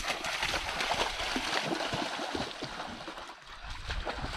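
Water splashing and churning as a dog bounds through a shallow creek, with a brief lull a little past three seconds in.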